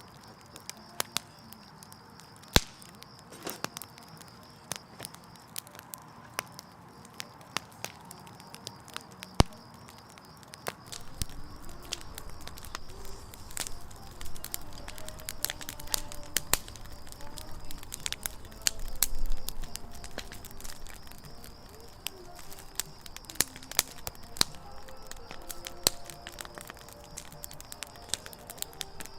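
Firewood burning in a campfire, crackling steadily with frequent sharp pops. A low rumble joins about a third of the way in.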